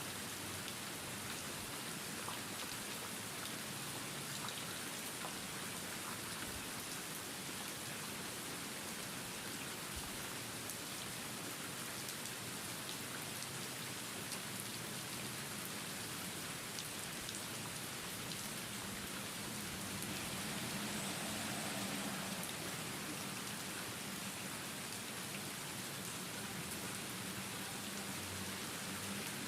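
Steady rain falling: an even hiss with a fine patter of individual drops, swelling slightly about two-thirds of the way through.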